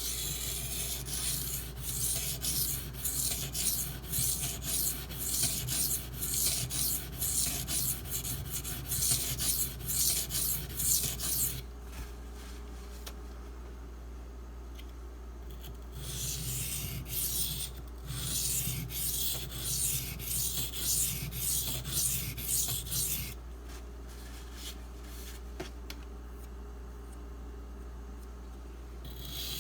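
Knife blade of SG2 (Super Gold) powder steel being stroked back and forth on a wet Shapton Pro 320 grit whetstone, a rapid run of gritty scraping strokes. The strokes stop twice for a few seconds, about twelve seconds in and again about twenty-three seconds in. This is the coarse grinding stage, with a burr already raised on the edge.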